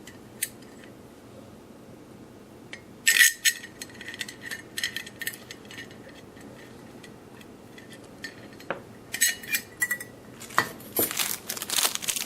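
Small metal chandelier mounting parts (screws and cap) clinking and tapping as they are handled. Irregular clicks, with a cluster about three seconds in and a busier run near the end.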